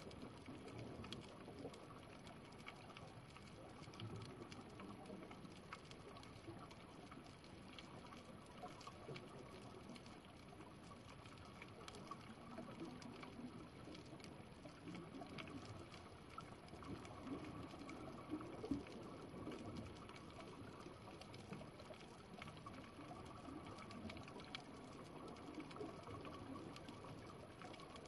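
Faint underwater ambience on a coral reef: a low wash of water movement with many small scattered clicks and crackles, and one slightly louder tick about two-thirds of the way through.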